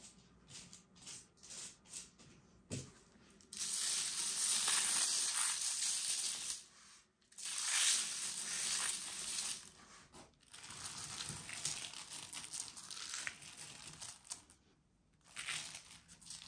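Thin pastry sheets being worked on a metal tray: short dabbing strokes of a silicone pastry brush and a knock about three seconds in, then fine white grains sprinkled by hand over the dry sheets in two long rustling, hissing showers and some lighter ones after.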